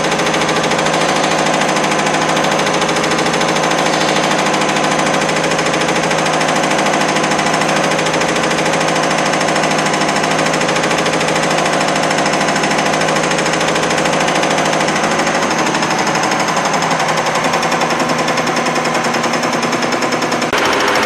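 Common rail injector and pump test bench running: a loud, steady mechanical clatter of rapid clicks, changing abruptly just before the end.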